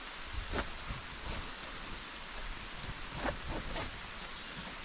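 Steady hiss of rain falling on the forest, with a few short rustles and knocks from a backpack being handled close by.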